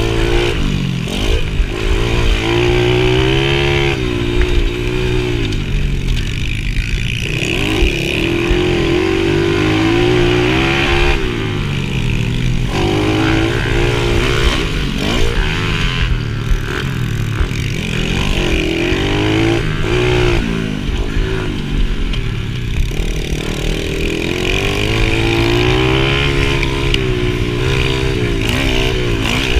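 Mini motocross bike engine heard from on board, revving up and shutting off over and over, its pitch climbing and falling several times as the rider accelerates down the straights and backs off for the turns.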